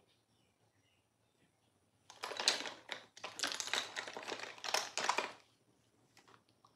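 Makeup items rummaged through by hand: a dense, loud run of clattering clicks and rustling that starts about two seconds in and lasts about three seconds, followed by a few faint clicks.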